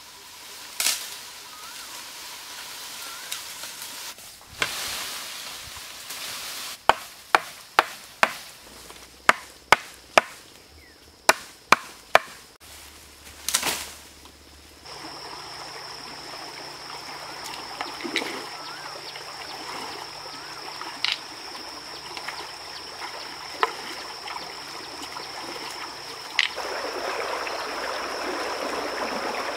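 A blade chopping into a green bamboo stem: about a dozen sharp strikes, several in quick succession. After that a steady high whine over faint rustling, and near the end a shallow stream running over rocks.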